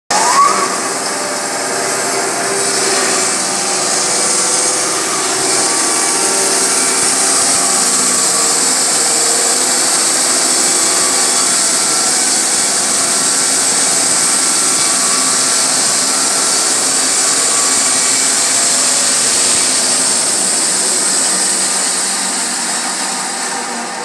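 Rhino 500 band sawmill running, its band blade cutting lengthwise through a log as the saw head is pushed along the track: a steady, loud, hissing saw noise that falls away near the end.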